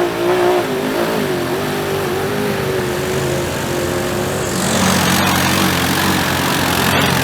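Side-by-side UTV engine revving under load while bogging through mud, its pitch wavering up and down as the throttle is worked. About four and a half seconds in, a louder rushing noise joins it.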